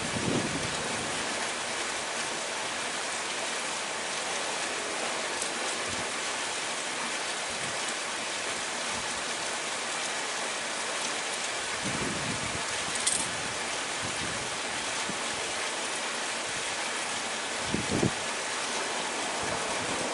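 Steady hiss of water, with a few soft low thumps, one near the start and others about 12 and 18 seconds in, and a brief tick about 13 seconds in.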